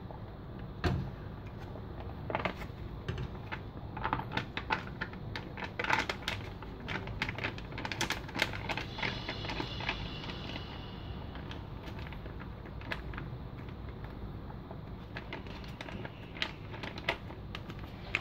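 Foil retort pouch crinkling and clicking as it is squeezed and emptied of vegetable curry into a frying pan, over a steady low hum. The clicks come thick for the first ten seconds or so, then thin out.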